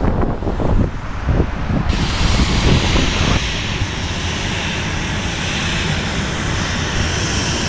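Airliner jet engines running with a loud, steady rush, with wind buffeting the microphone in the first couple of seconds.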